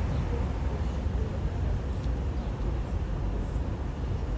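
Steady urban street background noise, mostly a low rumble of traffic, with no distinct sounds standing out.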